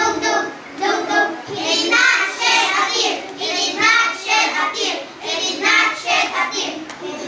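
A group of children's voices chanting lines of a poem together in unison, a speech choir, in even rhythmic phrases ('Tug! tug! tug! tug!' then 'he did not shed a tear').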